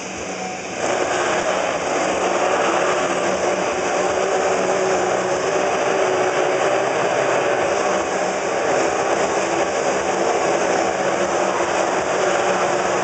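Several motorcycles' engines running together as the bikes circle inside a steel-mesh globe of death. The sound dips briefly at the start, then comes back up about a second in and stays steady and loud.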